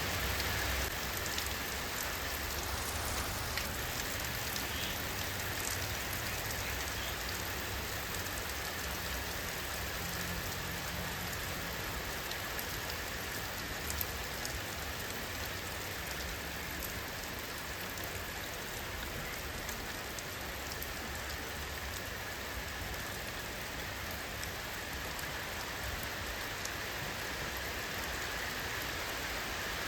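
Steady rain falling, an even hiss of rainfall with scattered individual drops ticking on a surface.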